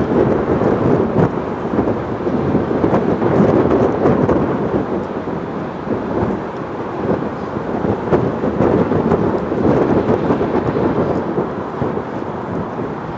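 Leonardo AW109SP GrandNew twin-turbine helicopter flying past, its rotor and engine noise a dense, steady, pulsing rumble that eases a little near the end as it draws away.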